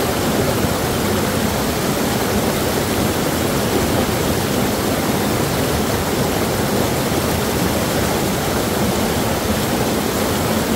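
Steady rush of a small rocky river cascade, water pouring over the rocks and splashing onto people sitting in it, right beside the microphone.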